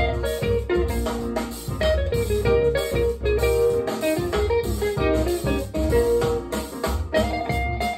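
Guitar music with bass played back through a pair of Celef LS8 standmount speakers, heard in the room.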